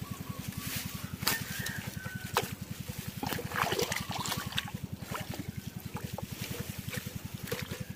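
Small boat engine running at a steady low speed, about ten even pulses a second, with some water noise and a few sharp knocks partway through.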